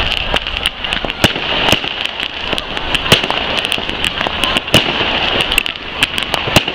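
Fireworks going off: many sharp, irregular pops and bangs, several a second, over a steady high hiss.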